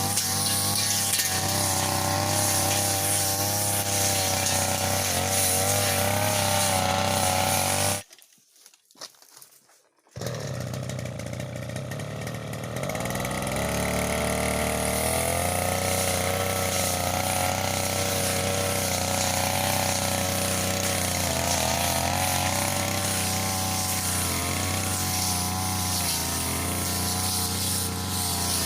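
Brush cutter engine running steadily at high speed. About eight seconds in it drops out for about two seconds, then comes back and revs up again.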